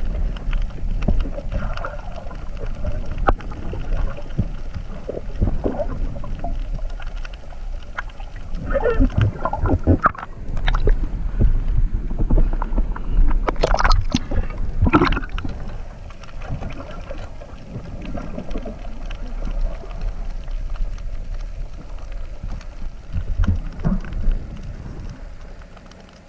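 Water sloshing and gurgling around a camera in the water, with a few sharp knocks, the loudest a little past the middle.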